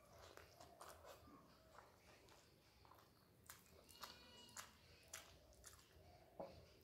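Faint eating sounds: a mouthful of rice being chewed with soft lip smacks and clicks, and fingers squishing rice on a steel plate. A faint high-pitched cry is heard briefly about halfway through.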